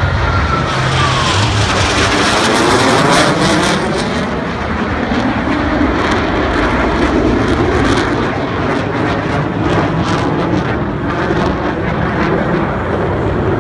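Blue Angels F/A-18 Hornet jets passing low over the field in formation, their engines loud and steady throughout. A falling whine comes in the first second as a jet goes by, and a sharp crackle of jet exhaust runs on after it.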